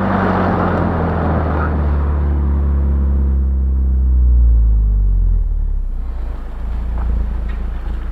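BMW 116i E87's four-cylinder petrol engine running through its stock exhaust, its note falling steadily in pitch for about five seconds and loudest just before it fades, then a low steady rumble.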